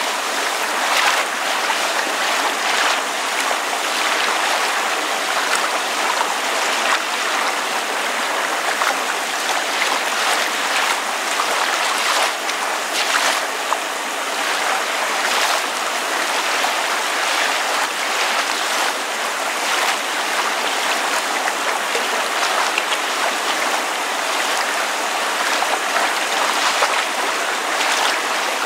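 Water lapping and splashing gently with steady rain falling: a continuous even hiss broken by small irregular splashes.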